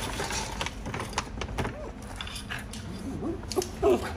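Cavalier King Charles spaniel grumbling for food: short, bending, growly whine-like vocal sounds, loudest near the end, among scattered sharp clicks and taps.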